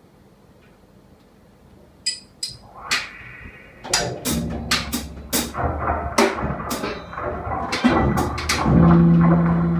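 Free-improvised music on a drum kit: near quiet at first, then scattered drum and cymbal strikes from about two seconds in, building from about four seconds into a dense, irregular clatter of drums over a low rumble, with a held low note entering near the end.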